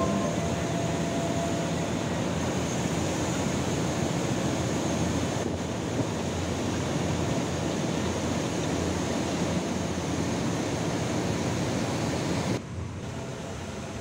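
Coal-loaded conveyor belt on a floating crane running, a steady noise of the moving belt and its rollers carrying coal. About twelve and a half seconds in, it drops to a quieter steady machinery hum.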